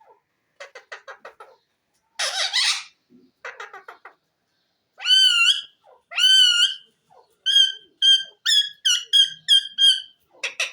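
Pet green parakeet calling: bursts of clicky chatter and a short harsh squawk, then two wavering whistles and a quick run of about eight short, even whistled notes.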